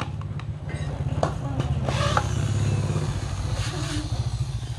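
Corded electric drill running as it bores into a thick slab of wood, over a steady low pulsing rumble.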